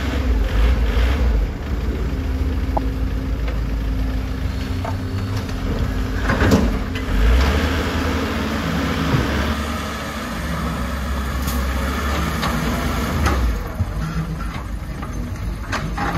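Hoa Mai dump truck's diesel engine running under load as the truck tips soil from its raised bed and pushes through loose dirt, the low rumble swelling and easing several times. A few sharp knocks sound over it, the clearest about halfway through.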